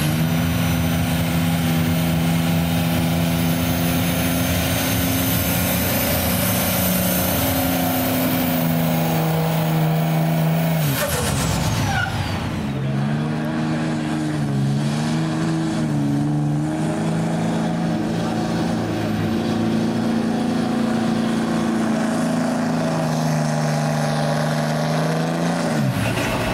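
Dodge Ram pickups' Cummins turbodiesels held at steady high revs under heavy load, each pulling a weight-transfer sled. One truck's pull runs for about the first eleven seconds. After a brief break a second truck's engine is heard, its pitch wavering for a few seconds before holding steady.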